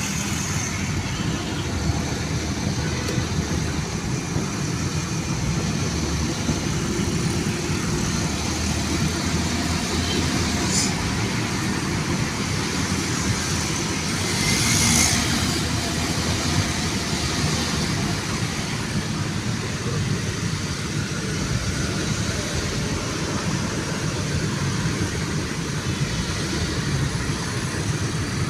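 Steady road traffic noise: car engines and tyres running on the road, with a louder whoosh of something passing close about halfway through.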